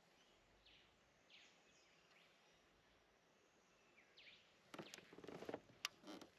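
Faint bird calls, each a quick falling chirp, repeating every second or so over quiet outdoor background. Near the end comes a short burst of knocks and rustling with one sharp click, the loudest part.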